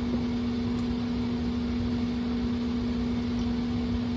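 Steady electric motor hum from a running fan: one constant low tone over an even hiss.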